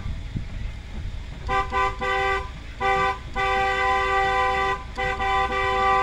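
Truck horn honked to call cattle to feed: about a second and a half in, several short toots, then two long steady blasts of its two-note tone. A low rumble of the truck moving runs underneath.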